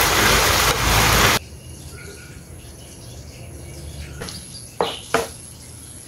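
Chicken and basil sizzling loudly in a wok during stir-frying, cut off abruptly after about a second and a half. Then faint outdoor chirping, with a few sharp knocks of a utensil on a pan near the end.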